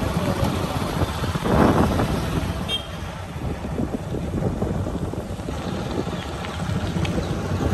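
Steady low rumble of riding along a road in a moving vehicle, with wind buffeting the microphone. A louder rush comes about one and a half seconds in, and the sound eases slightly after about three seconds.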